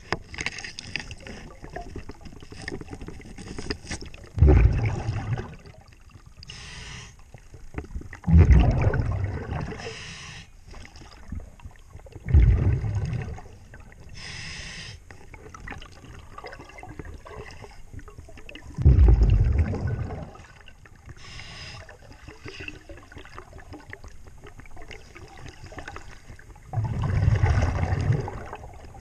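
A diver breathing underwater through a regulator: a loud bubbling rumble of exhaled air every few seconds, with a shorter hiss of inhalation from the regulator between them.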